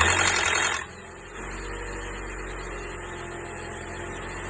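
Car engine just after a cold first start, making a loud noise for under a second before settling to a steady idle. The presenter says such a noise could be the timing chain tensioner or the variable valve timing pulley on this engine, but is typically a faulty oil check valve letting the oil drain from the cylinder head down to the sump overnight.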